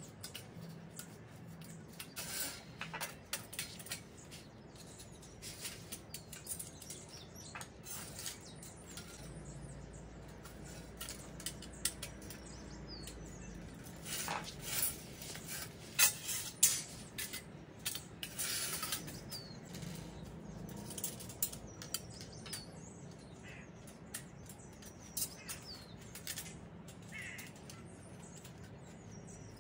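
Stainless steel rack parts clinking and knocking against each other and the tile floor while they are fitted together and screwed up with a screwdriver, the loudest knocks about halfway through. Small birds chirp in the background.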